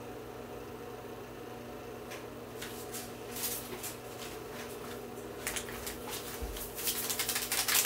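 Scattered clicks, knocks and rattles of someone rummaging through things in search of lost scissors, sparse at first and busier in the second half, over a steady low hum.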